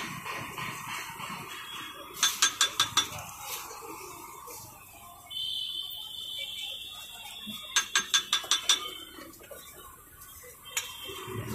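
Steel masher clanking against the iron dosa griddle as the topping is chopped and mashed, in two quick runs of about six metal taps each. A steady high whistle-like tone sounds for a couple of seconds in between.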